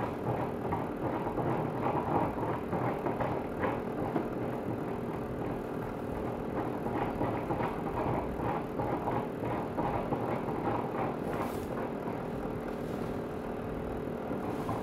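Tepal upright garment steamer running: a steady hum under a constant rough, irregular rattle.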